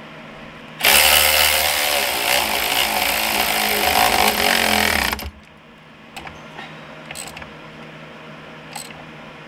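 Cordless electric ratchet running for about four and a half seconds as it drives an engine mount bolt down, then stopping abruptly. A few light metal clicks follow.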